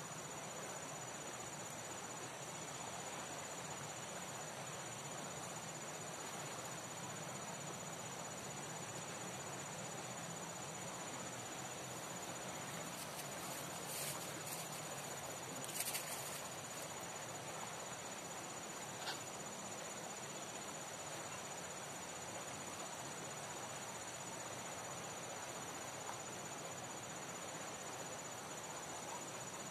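Insects chirring steadily at a high pitch over an even, steady background noise, with a few brief faint clicks near the middle.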